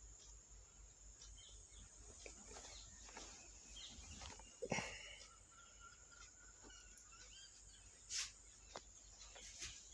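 Near silence, with faint scattered clicks and taps from small handwork, and a faint bird call in the background a little before the middle.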